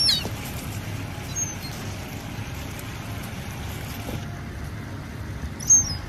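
Thin, high-pitched squeals from a young gull: one falling in pitch right at the start, a short note about a second and a half in, and a louder one near the end, over a steady low rumble.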